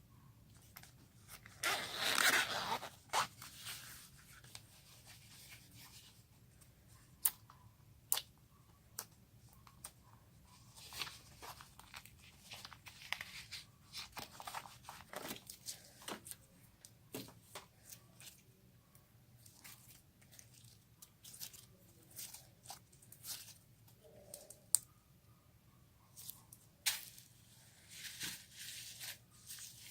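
Hands squishing and stretching slime: irregular sticky clicks and crackles, with a longer tearing, crackly stretch about two seconds in and another near the end.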